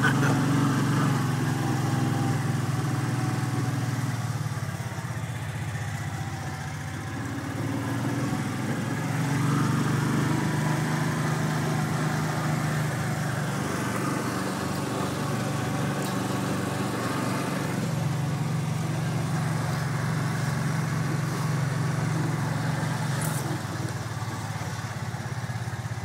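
A 4x4 vehicle's engine running steadily as it drives along. The engine note eases off about five seconds in and picks up again a few seconds later.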